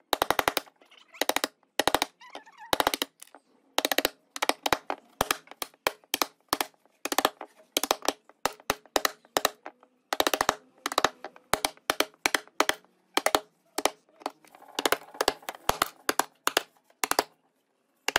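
Wooden mallet hammering a chisel into a pine board, chopping out the waste of a notched joint. Quick runs of sharp knocks come with short pauses between them as chips split away.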